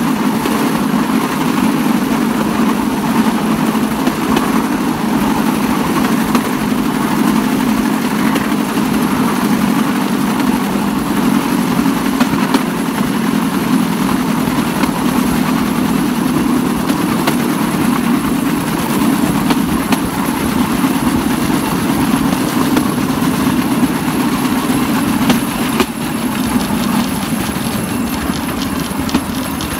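Small petrol engine of a bamboo train (norry) running steadily as the platform rolls along the rails, with the running noise of the wheels on the track. It eases off near the end as the train slows.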